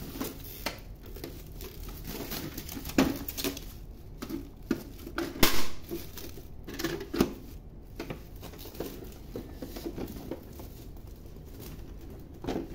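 Clear plastic stretch film being pulled off its roll and wound around a laser printer: irregular crinkling and crackling of the plastic, with a few sharper, louder crackles scattered through.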